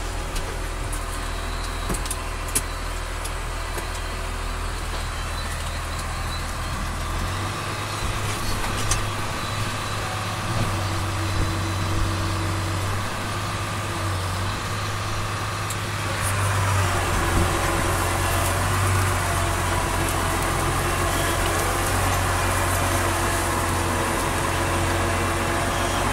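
New Holland TS115A tractor's diesel engine running steadily as it tows a four-bottom moldboard plow, heard from inside the cab. The engine note rises about a quarter of the way in and grows louder about two-thirds through.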